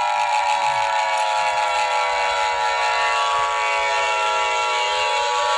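Synthesized emergency alert tones: a steady chord of high tones held throughout, with several lower tones sliding slowly down in pitch and starting to rise again near the end.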